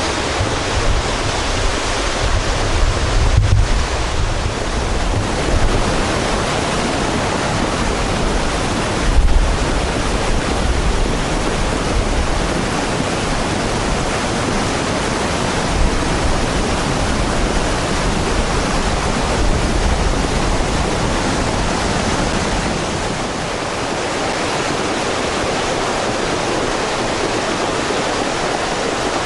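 Mountain stream in spate, its muddy floodwater rushing loudly and steadily over a rocky bed.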